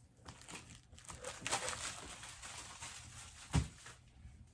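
Crinkling and rustling of product packaging being handled, with a single low thump about three and a half seconds in.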